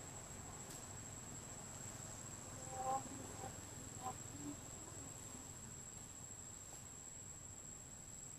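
Steady high-pitched insect drone in the forest canopy, one unbroken tone, with a couple of brief faint chirping calls about three and four seconds in.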